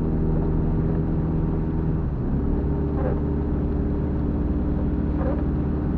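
A car's engine and road noise while driving, a steady drone whose engine note changes about two seconds in.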